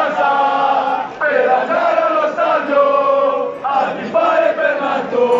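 Football supporters in the stands chanting a terrace song in unison, many voices singing together steadily.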